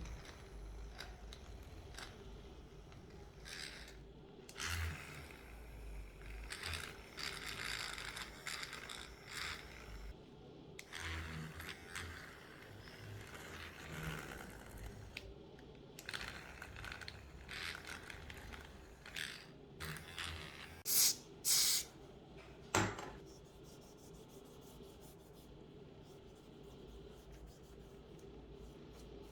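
Irregular scraping and scratching on a phone's back glass and adhesive by a hand tool, as in removing cracked back glass, with three sharp clicks a little over two thirds of the way through.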